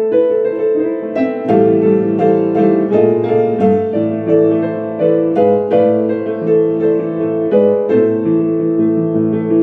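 Ambient piano-style keyboard music played live: notes and chords struck in a slow, flowing pattern, each left ringing over the next.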